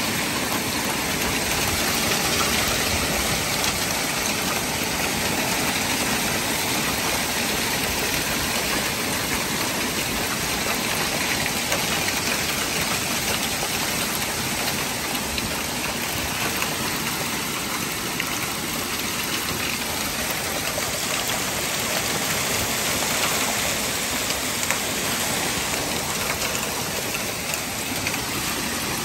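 Heavy rain and hail pelting down in a violent thunderstorm: a dense, steady hiss with scattered sharp ticks of hailstones striking.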